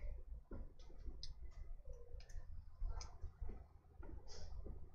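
Scattered light clicks and ticks of plastic bottles being handled and squeezed as flavor concentrate is dripped into a plastic bottle on a scale, over a low steady hum.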